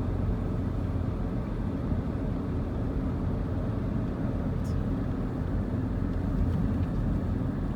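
Steady low rumble and hum of a Walt Disney World monorail, heard from inside the car, with no change in pitch or level.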